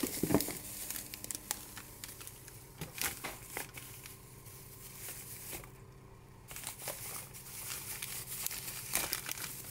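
Thin clear plastic bag crinkling and rustling as it is handled and pulled open, with many small sharp crackles and a brief lull just past the middle.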